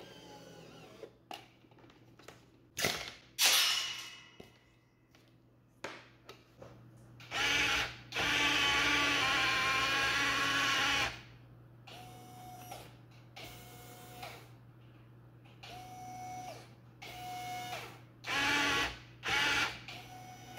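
Small electric gear motors of a scale-model tank whining as they drive the turret and gun: one run of about three seconds, then a string of short runs of under a second each. A sharp click comes about three and a half seconds in.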